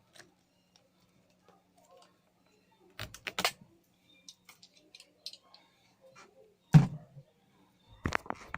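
Hands-on handling noises: a few sharp clicks and taps, one loud knock with a dull thud about two-thirds of the way through, then busy rustling and crackling near the end.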